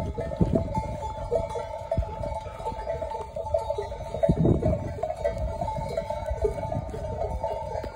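Many bells on a walking flock of sheep jangling continuously and unevenly, with a low rumble underneath.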